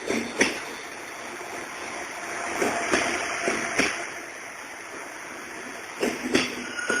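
Train running along the rails: a steady rushing noise broken by a few sharp, irregular knocks of the wheels and cars.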